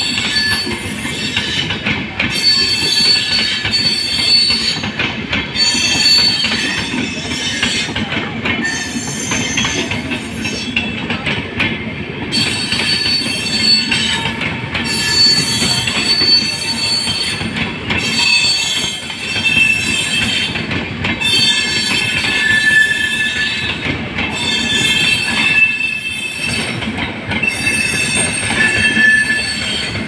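LHB passenger coaches rolling past as the train arrives at a station, their steel wheels screeching shrilly on the rails. Several high squealing tones fade in and out every second or two over a steady rolling rumble with faint rail-joint clicks.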